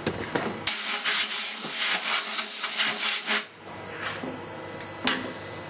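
Compressed-air blow gun blowing cutting fluid off a freshly threaded stainless steel part held in a CNC lathe chuck. A single loud hiss starts under a second in and cuts off sharply about three and a half seconds in.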